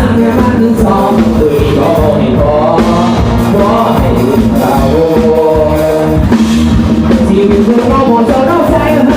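Mor lam music: a singer's voice, with its pitch sliding and breaking into phrases, sung over a loud amplified band with a drum kit.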